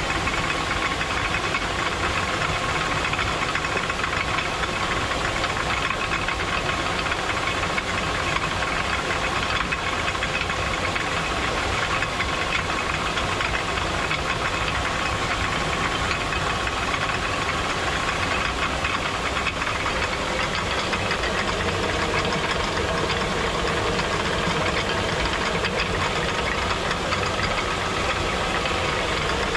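Traditional Nepali water mill (ghatta) running: a steady, rapid knocking rattle over a rushing hiss.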